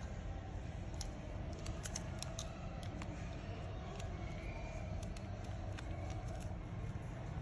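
Scattered small clicks and taps of a phone's internal cover and parts being handled and pressed into place during reassembly, over a steady low background hum.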